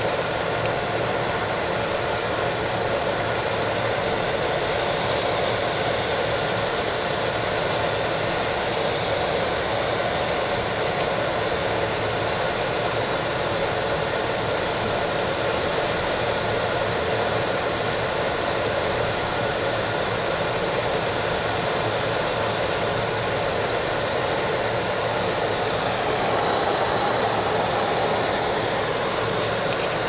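Steady in-cabin noise of a car driving on a snow-covered street: tyre and road rush with the engine running, swelling slightly near the end.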